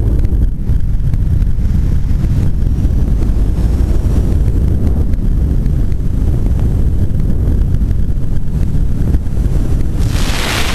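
Wind buffeting the camera microphone during a tandem skydive descent: a steady low rumble. A brighter rushing hiss rises near the end.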